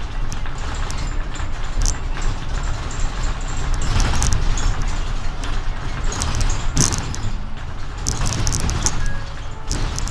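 Mercedes city bus under way, heard from inside: a steady low engine and road rumble, with scattered clicks and rattles from the cabin that bunch up in the second half.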